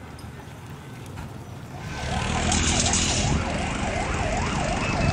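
An emergency vehicle's siren in a fast yelp, rising and falling about three times a second, comes in about two seconds in and gets louder.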